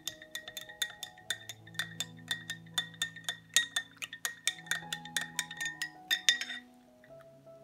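Music: sustained low chords under a fast, even run of bright, ringing clicks, several a second, that stops near the end.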